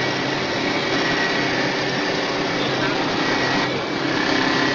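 CNC wood turning lathe cutting a spinning wooden spindle with a solid carbide lathe knife: a steady machine hum under a dense hiss of wood being shaved into chips, dipping briefly just before the end.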